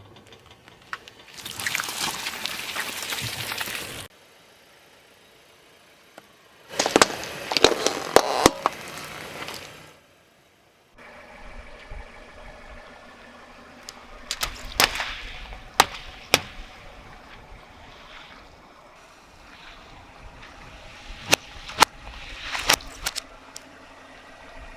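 A car tyre rolling over and crushing objects, in several short clips: crackling, squishing noise and a series of sharp cracks and snaps as things break or burst under the wheel.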